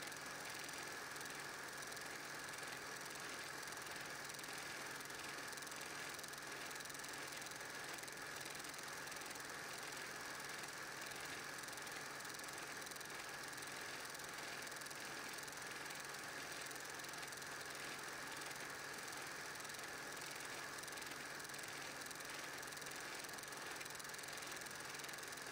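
Film projector running during the transfer of a silent 8mm home movie: a faint, even mechanical clatter under a steady hum and hiss.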